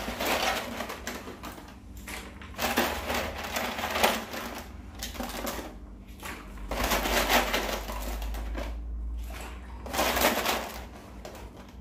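Handfuls of large short-cut dry pasta rattling and clattering as they are scooped out of the packet, with the plastic bag crinkling, in about four bouts.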